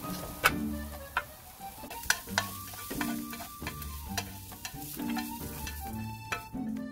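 Julienned carrots sizzling in a nonstick frying pan as they are stir-fried with wooden chopsticks, with sharp clicks of the chopsticks against the pan. About six seconds in, the carrots are tipped from the pan onto a stainless steel tray.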